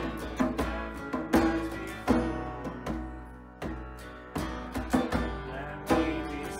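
Worship band playing an instrumental passage: guitar over a drum beat.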